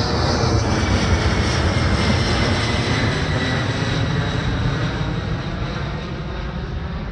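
Boeing C-17 Globemaster III's four Pratt & Whitney F117 turbofans at climb power after takeoff: a steady jet rumble with a high whine that slides slowly down in pitch as it gradually fades with the aircraft flying away.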